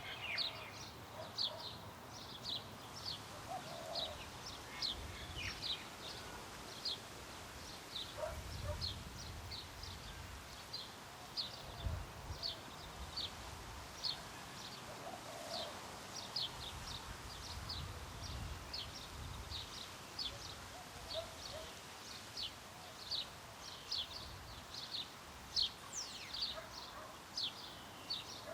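Small birds chirping over and over, short high falling notes about two a second, over light wind and a low distant traffic rumble that swells and fades.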